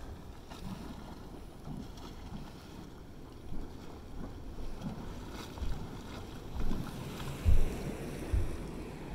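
Hot spring vent in a geyser basin churning and sloshing with steam, in irregular surges, while wind thumps on the microphone, strongest in the last few seconds.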